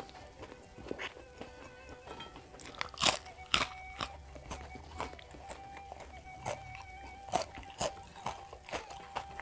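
Crunchy biting and chewing of food by hand-fed mouthfuls, with two loud crunches about three seconds in and many smaller chewing crunches after.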